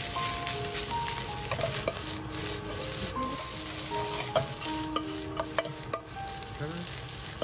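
Egg-coated leftover rice sizzling in hot oil in a pan while it is stir-fried and broken up, with a spatula scraping and clicking against the pan.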